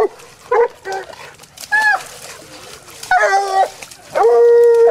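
Hound puppies baying at a hog: a string of short barks and yelps, then one long, drawn-out bay near the end.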